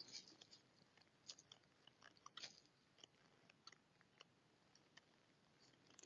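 Near silence with faint, irregular crackles: footsteps on dry fallen leaves.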